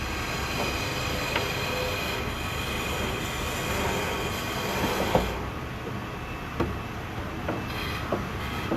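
Steady mechanical rumble with a high whine, easing about five seconds in, followed by scattered knocks and clatter.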